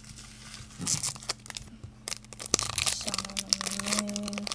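Foil wrapper of a Pokémon TCG booster pack crinkling and tearing as hands rip it open. A low held hum from a voice sounds about three seconds in.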